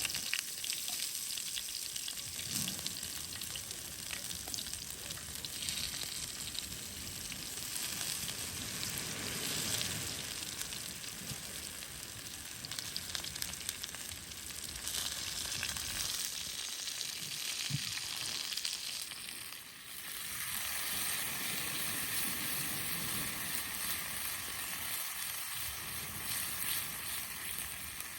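Chillies sizzling and crackling in hot oil in a pan, a steady frying hiss with a brief dip about two-thirds of the way through.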